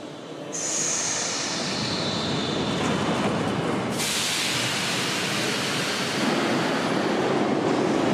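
Tashkent Metro train running: a steady rushing noise of wheels and air that grows louder about half a second in, with a sharper hiss setting in suddenly about four seconds in.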